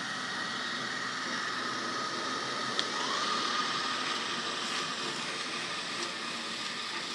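Robot vacuum cleaner running with a steady whirring hiss and a faint whine, and a single sharp click about three seconds in.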